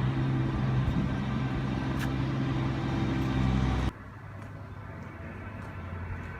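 A vehicle engine running steadily with a low hum, cut off abruptly about four seconds in; a quieter outdoor background follows.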